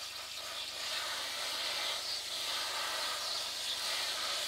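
Garden hose spray nozzle running: a steady hiss of water spraying onto pepper plants and straw mulch in a planter.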